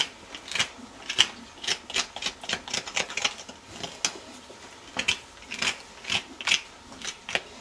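Farrier's hoof knife scraping and paring a horse's hoof sole, in short strokes about two or three a second.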